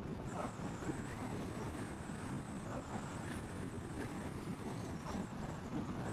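Steady road and engine rumble of a car heard from inside the cabin while driving.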